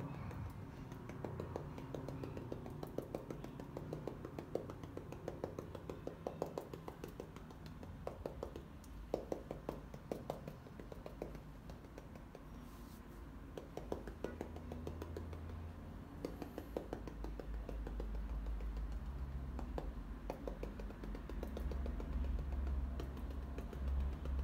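Quick, irregular soft taps of a round-headed paint dauber dabbing acrylic paint onto canvas. A low hum comes in about halfway and grows stronger toward the end.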